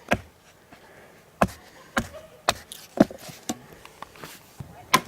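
A series of sharp knocks and clicks at an irregular pace, about ten in five seconds.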